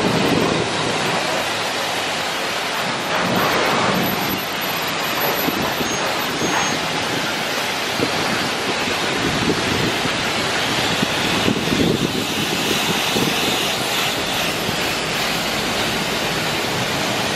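Car-wash pressure wand spraying water onto a car's body: a steady hiss of spray.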